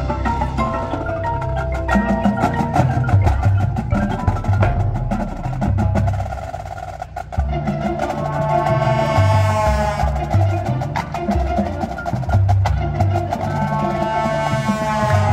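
Marching band playing its field show: the front ensemble's mallet percussion and drums keep up a run of sharp strokes, and sustained band chords swell about eight seconds in and again near the end.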